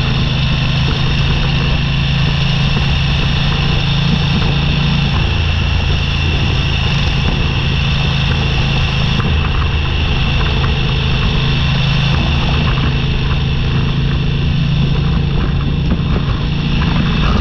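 Motorcycle engine running steadily at cruising speed, with gravel crackling under the tyres.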